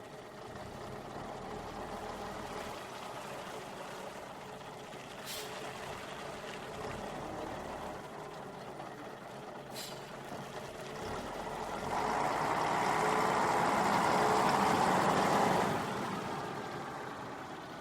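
Bus engine running as the bus moves, with a faint click twice and a louder, noisy swell about twelve seconds in that lasts a few seconds and then fades.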